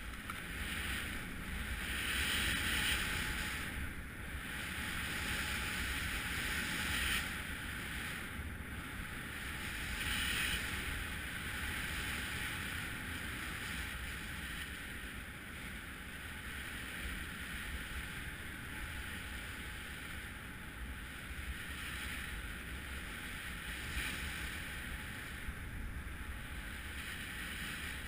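Skis hissing and scraping over snow on a fast downhill run, mixed with wind rushing over the camera microphone. It swells louder a few times in the first ten seconds, then settles a little quieter.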